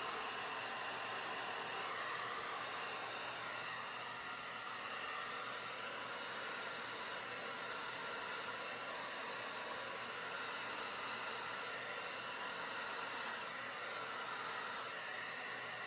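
Steady rush of air from a handheld blower, blowing wet acrylic paint outward across a poured canvas to open a bloom.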